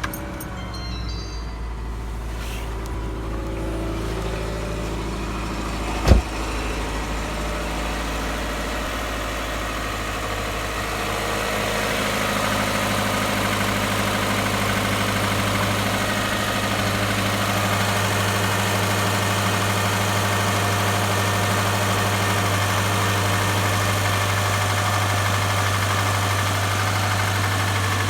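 Subaru flat-four boxer engine idling just after a cold start, with a single sharp thump about six seconds in, and running a little louder from about eleven seconds on. The owner finds it very loud on a cold start and asks what is knocking.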